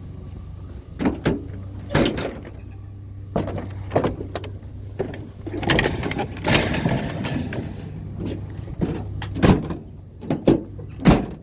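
Scrap being handled and loaded: a series of sharp clanks and thuds, about eight of them, with a stretch of scraping and rattling in the middle, over a vehicle engine idling steadily.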